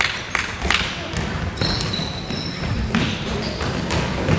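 A basketball bouncing on a gym court in a youth game, several sharp bounces, with players' and spectators' voices behind.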